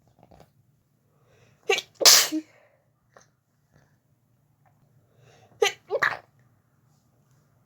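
A woman sneezing twice, about four seconds apart, during a sneezing fit. Each sneeze comes as a short burst followed at once by a louder one.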